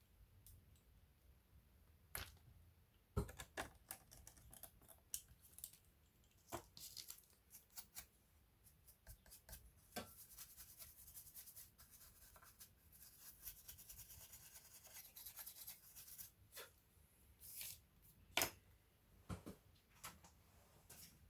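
Faint handling sounds of work on a laptop's parts: scattered small clicks and taps, with a stretch of scratchy rubbing about halfway through.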